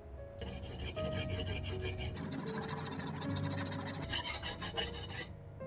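Rapid, rhythmic metal-on-abrasive scraping as something is rubbed back and forth on a wet diamond sharpening plate. It starts about half a second in and stops about five seconds in, with soft piano music underneath.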